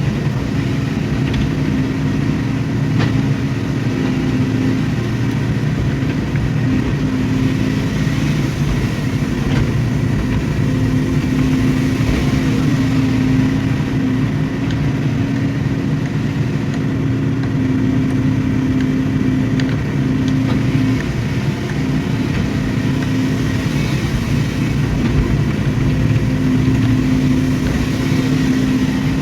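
Excavator's diesel engine running steadily, with a continuous hum that fades in and out now and then.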